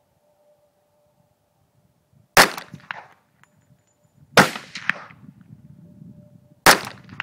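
Three single gunshots from an Ingram MAC-10 (M10) pistol, spaced about two seconds apart, each followed by a short trail of fainter knocks and ringing.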